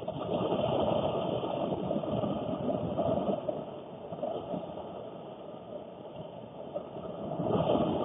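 Heavy, wind-driven rain beating on a car's roof and windows, heard from inside the cabin, with gusts making it swell louder about half a second in and again just before the end.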